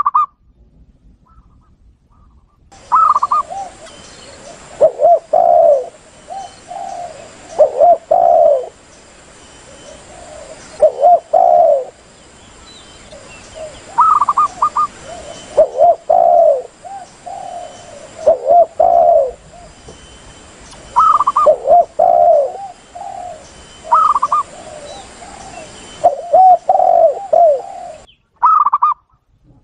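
Recorded spotted doves and zebra doves cooing, played as a hunting lure call. Phrases come every three seconds or so, each a few short higher notes followed by lower rolling coos, over a faint steady recording hiss.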